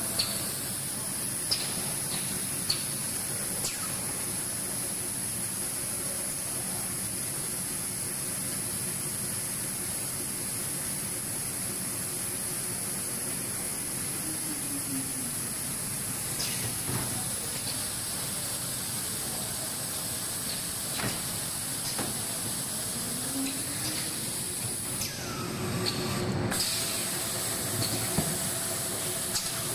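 Rotary die-cutting machine with an automatic labeler running steadily: a constant mechanical hiss with a faint high whine and scattered sharp clicks. Twice a brief gliding hum falls or rises as a drive moves, and the noise swells briefly a few seconds before the end.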